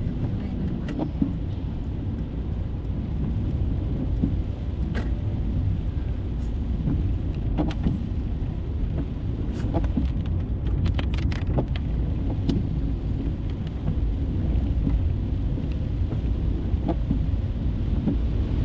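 Steady low rumble of a Mercedes-Benz car driving on a wet road in rain, heard from inside the cabin, with scattered sharp ticks of raindrops on the glass, several in a quick cluster about ten seconds in.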